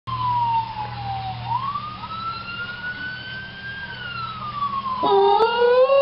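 Police siren wailing, its pitch slowly falling, then rising, then falling again. About five seconds in, a cockapoo starts howling along with it, a louder, lower note that rises as the siren goes on.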